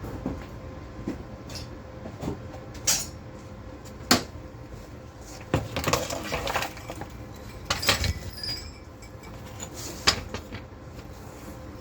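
Irregular metallic clanks and clinks of steel brackets, clamps and tools being handled and set against steel, about ten separate knocks, some in quick clusters, over a faint steady hum.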